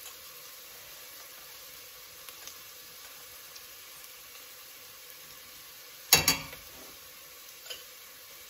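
Diced onions frying in coconut oil in a stainless steel stockpot, sizzling steadily. A pair of sharp knocks about six seconds in and a lighter knock near the end.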